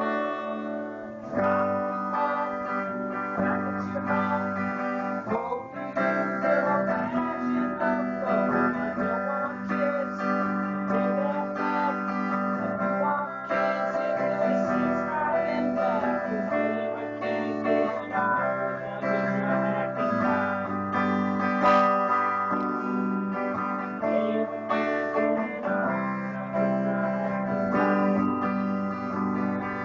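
Guitar music: strummed guitar chords over a bass line, with the chords changing every second or two.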